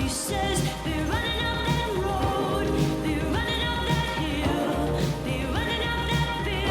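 Pop song playing: a woman singing over a steady beat and bass.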